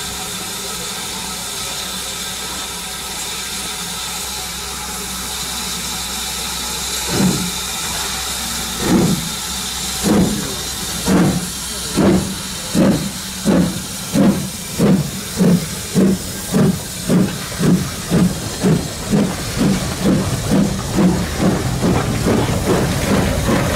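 BR Standard Class 4MT 2-6-0 steam locomotive 76017, a two-cylinder engine, hissing steam at a standstill and then starting away with its train. Its exhaust beats begin about seven seconds in, slow and far apart, and quicken steadily to two or three a second as it gathers speed. Near the end the wheels roll past close by.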